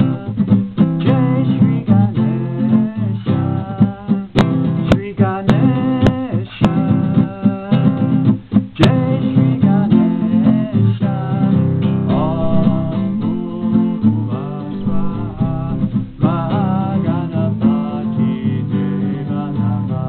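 Acoustic guitar strummed steadily in C, moving through the C, C7, F and G chords, with a man's voice singing along in places.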